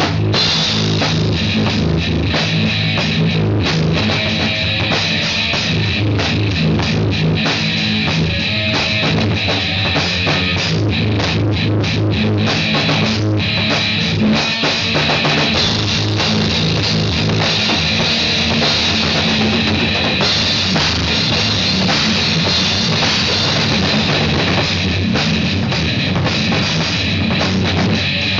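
Rock music played on a drum kit with guitar, loud and continuous, with a steady heavy beat.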